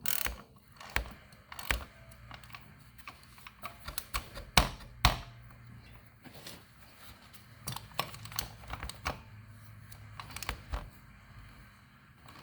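Scattered clicks and light knocks of hand tools and metal parts being handled, irregular and uneven in strength, during work fitting a new oil filter on a motorcycle.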